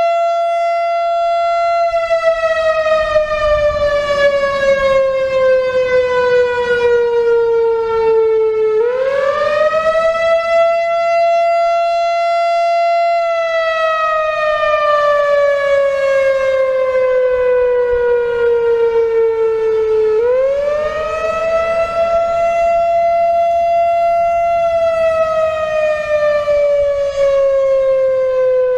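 Whelen WPS-4000-4 electronic outdoor warning siren, driven by its original analog ESC-864 controller, sounding a wail. The tone sweeps quickly up, holds high for about three seconds, then glides slowly down for about seven seconds, rising again about 9 and 20 seconds in. The siren sounds weak, which the owner puts down to its age and a couple of blown-out drivers.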